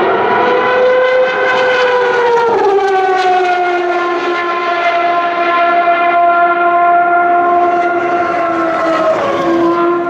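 Open-wheel single-seater racing car engine at high revs, a clear, loud tone. It steps down in pitch with an upshift about two and a half seconds in, then sinks slowly and drops again near the end.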